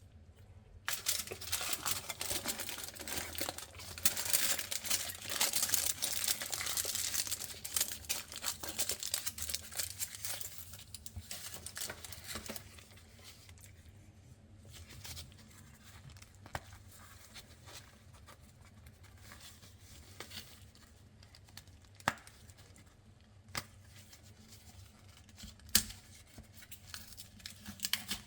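A chocolate bar's wrapper being torn open and crinkled by hand, busy and continuous for the first ten seconds or so, then only a few soft crinkles and sharp ticks.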